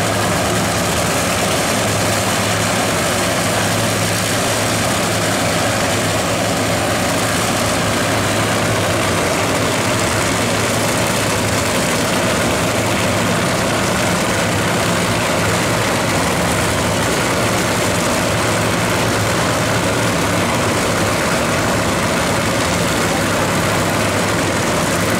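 Supercharged nitromethane-burning NHRA Funny Car V8 engines idling steadily.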